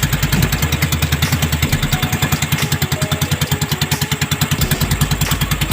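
Small fishing-boat engine running steadily at an even speed, a fast putt-putt beat of about ten pulses a second.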